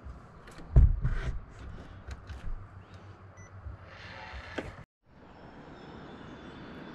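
Handling noise: knocks, clicks and rustling, with one heavy thump about a second in. After a short dropout, a steady outdoor hiss.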